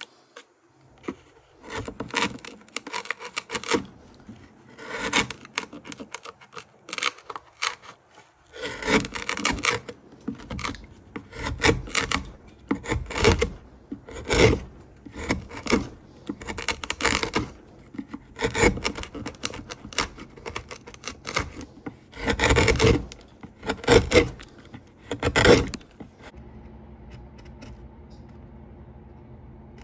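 Hand gouge paring wood from a fiddle plate: a long run of separate scraping cuts, roughly one a second, that stops about 26 seconds in, leaving a low steady hum.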